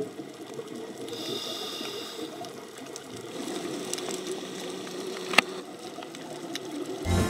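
Underwater ambience through a camera housing: a steady watery hiss with scattered sharp clicks and crackles, one louder click about five seconds in.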